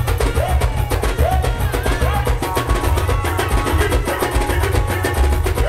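Live Garifuna dance music played loud through a PA, with heavy bass, a fast drum pattern and a melodic line over the top.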